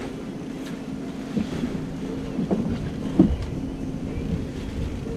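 Steady low hum of a boat engine, with a few short knocks and clicks, the loudest about three seconds in.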